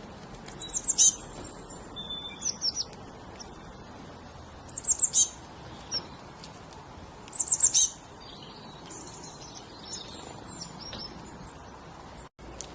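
A small bird singing: quick runs of high, falling chirps, with three loud runs about every three seconds and softer chirps in between.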